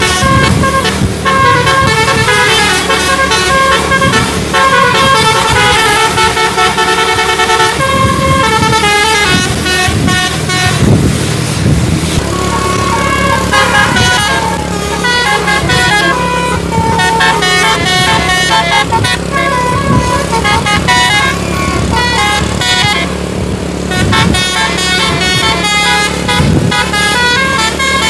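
Indonesian bus telolet (basuri) musical horns playing quick multi-note tunes over and over, the notes stepping up and down, over a bus engine's steady low hum.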